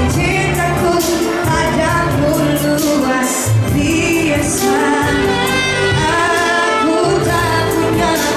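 Pop song with a voice singing a melody over bass and a steady beat with cymbals.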